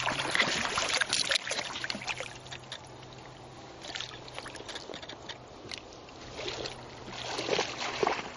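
Shallow river water splashing and sloshing in irregular bursts around a trout held in a landing net. The splashing is loudest in the first second and again near the end.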